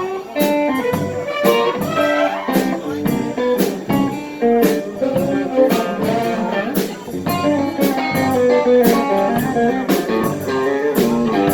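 Instrumental guitar music: plucked guitar notes moving over a steady beat, with no singing.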